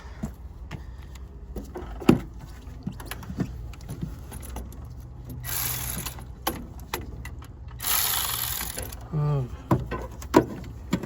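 A cordless power tool with a 12 mm socket running in two short bursts of about a second each, among clinks and knocks of metal tools against the engine.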